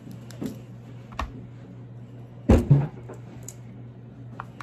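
Cooked king crab leg shell being broken and picked apart by hand: a few sharp clicks and cracks, with a louder double knock about two and a half seconds in.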